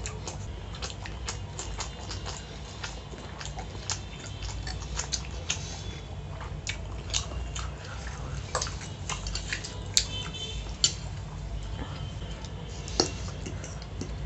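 Close-miked eating of pasta: wet chewing and mouth clicks, with a metal fork clinking and scraping on the plate, and a few sharper clinks in the second half.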